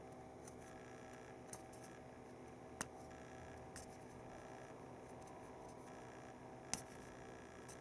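A few sharp small clicks and taps of small plastic mouse parts being handled and worked, two louder ones about three seconds in and near the end, over a faint steady hum.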